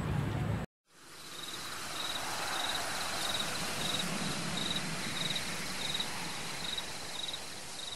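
Cricket chirping: a short, high chirp repeating about every two-thirds of a second over a steady evening hiss, starting about a second in.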